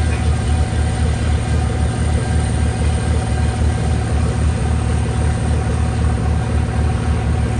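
An engine idling with a steady, rhythmic low throb.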